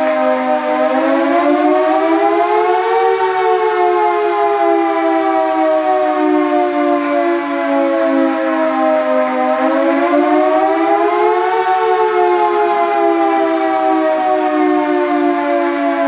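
Siren wailing, several tones sounding together: its pitch rises for about three seconds, then sinks slowly for about six, and rises and sinks again.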